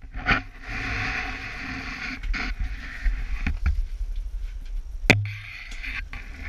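Rustling and scraping of nylon ice-tent fabric and gear being handled as the camera moves out through the tent doorway, with a few knocks and one sharp thump about five seconds in.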